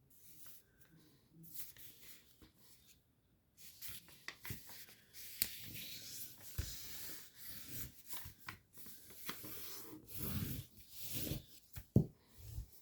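A sheet of origami paper rustling and crinkling as it is handled and folded in half, with the fold rubbed flat into a crease. It is faint at first and grows busier and louder a few seconds in.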